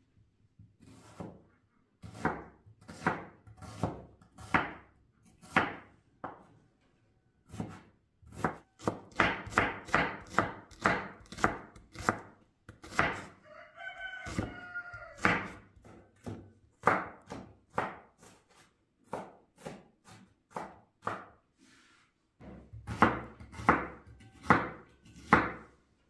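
A steady series of chopping strikes, about one to two a second, broken by short pauses. A rooster crows once, about halfway through.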